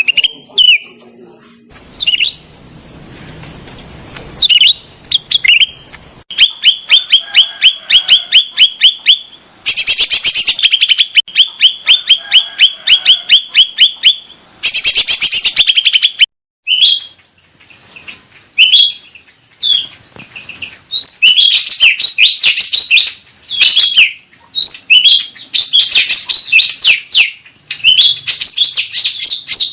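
Cucak rante bird singing loudly in long trains of rapid, evenly repeated chirps, several a second. It breaks off briefly about halfway through and then carries on in faster, more varied chirping phrases.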